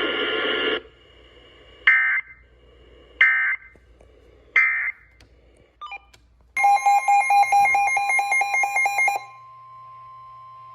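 Emergency Alert System digital SAME data bursts, the harsh screeching modem-like squawk of encoded alert data. First come three short bursts about a second and a quarter apart, typical of the end-of-message code closing a warning. Then comes a longer warbling data burst of about two and a half seconds, followed by a steady alert tone for about a second and a half.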